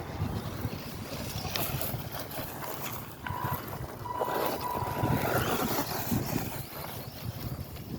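Small electric RC crawler's motor and gears running as it drives over rough ground, with wind buffeting the microphone.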